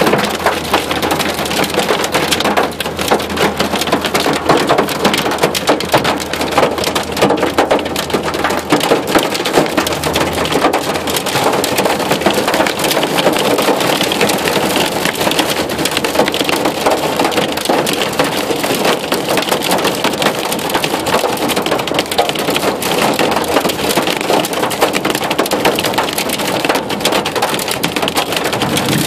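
Hail and heavy rain pelting a truck's roof, hood and windshield, heard from inside the cab: a loud, unbroken clatter of countless impacts.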